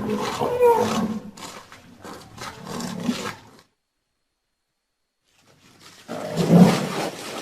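Rhinoceros calling: a run of low, pitched calls for about three and a half seconds, then a break of about two seconds, then one louder call near the end.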